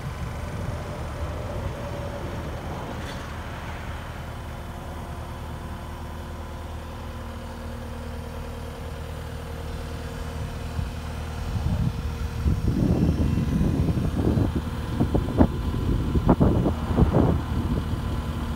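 Caterpillar 259D compact track loader's diesel engine idling steadily. In the last several seconds, louder irregular rumbling buffets come in over it.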